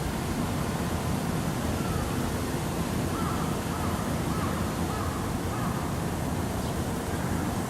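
Steady low rumble of wind buffeting an action camera's microphone. About three seconds in, four or five faint short calls come in a quick row.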